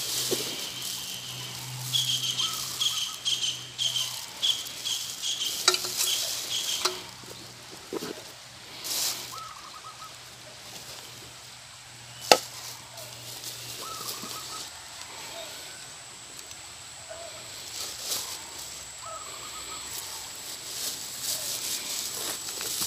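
Plastic bags and cooking gear being taken out of a backpack and set down on stony ground: rustling plastic and handling noise with scattered clicks, and one sharp knock about halfway through. Short repeated chirping runs in the background.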